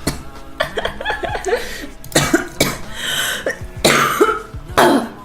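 A young woman coughing repeatedly, a run of harsh coughs that come closer together and louder in the second half.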